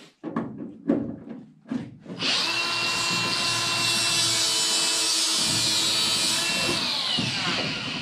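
Power tool motor running at a steady pitch for about five seconds, then winding down with a falling pitch as it coasts to a stop. It is preceded by a few short clicks.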